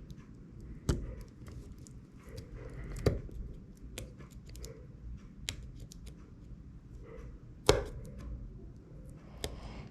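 Small tools clicking and tapping on an opened iPhone 6s and the work surface during battery removal, with sharper knocks about one, three and nearly eight seconds in.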